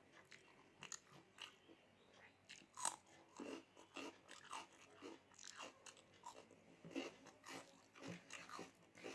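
A person eating close to the microphone: irregular wet chewing and lip smacks, with a few sharper clicks, of a home-cooked rice and curry meal.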